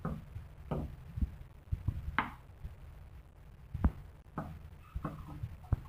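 Steel ladle stirring thick sambar in an aluminium pressure cooker, knocking and scraping against the pot at irregular moments, the loudest knock about four seconds in, over a low steady rumble.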